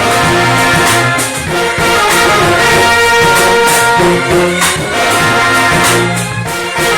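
Live band with horns playing long held chords over changing low bass notes, with sharp percussion hits in between.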